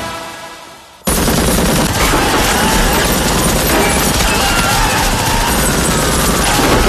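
Music fades away, then about a second in heavy machine-gun fire breaks in suddenly and keeps up without a break: a tripod-mounted machine gun firing a sustained burst in a film soundtrack.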